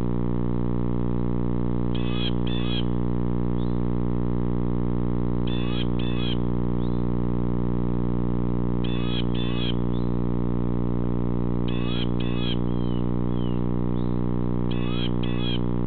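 A songbird outside the owl box repeats a short two-note call five times, about every three seconds. Underneath runs a steady electrical hum from the box camera's microphone.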